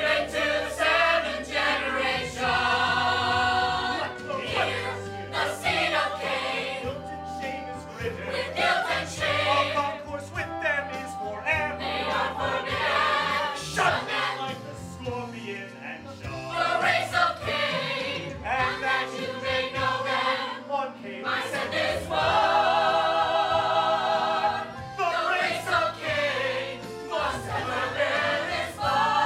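Choir singing long held chords that swell and fade, with vibrato on the held notes near the end.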